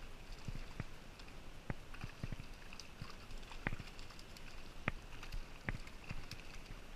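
Creek water running over shallow riffles, with a dozen or so sharp, irregular clicks and taps while a small rainbow trout is played on a spinning rod.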